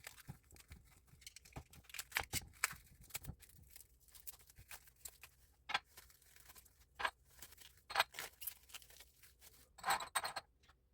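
Packaging being handled and opened by hand: irregular crinkles, snips and light clicks, with a louder burst of rustling near the end.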